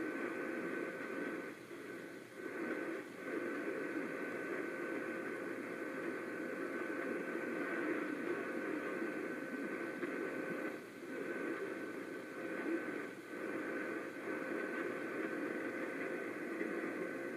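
Radio receiver static: a steady hiss with faint steady whistles, typical of a weak station signal. The hiss dips briefly a few times.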